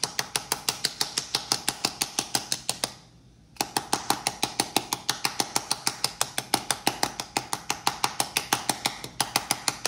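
A metal measuring spoon tapping rapidly and evenly on a Herbalife LiftOff effervescent tablet in its foil packet, about five or six sharp taps a second with a short break about three seconds in: the tablet is being crushed so it dissolves faster in water.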